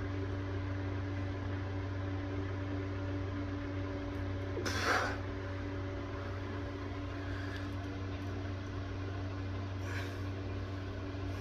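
A steady low electrical-sounding hum, with a short breathy hiss about five seconds in and a fainter one near the end, like a person breathing out sharply while straining.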